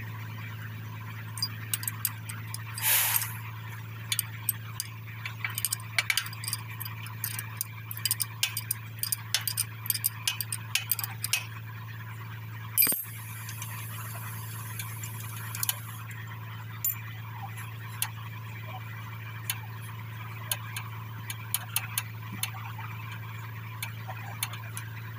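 Metal clinking and clicking of a spanner and loose steel parts of a tractor's brake linkage being handled, in irregular runs of light clicks with a sharper knock about 13 seconds in. A steady low hum runs underneath.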